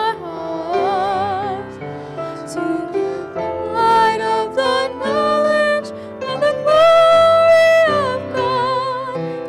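A young woman and a young man singing a scripture song into microphones, the voices wavering with vibrato and holding one long high note about seven seconds in.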